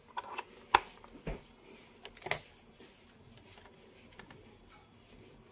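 Test lead plugs being pushed into the input terminals of a Hioki IR4056 insulation tester: a few sharp plastic clicks and knocks in the first couple of seconds, the loudest a little over two seconds in.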